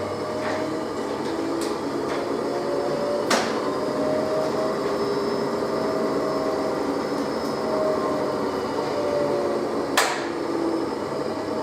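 Electrolux 365H LE washing machine running a wash: the drum motor hums in stretches as the drum turns, over the steady noise of the tumbling load, with two sharp knocks, one about three seconds in and one near the end.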